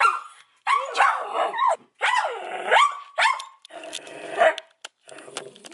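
Small dog alarm-barking in a run of drawn-out barks that rise and fall in pitch, at a person it does not recognise in heavy face paint.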